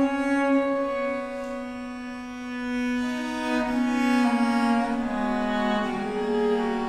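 Violin and viola da gamba playing together in long bowed notes. The lower line steps down in pitch about four and five seconds in, while the violin moves above it.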